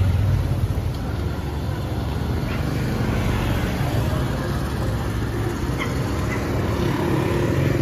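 City street traffic, mostly motorbike engines, making a steady low rumble.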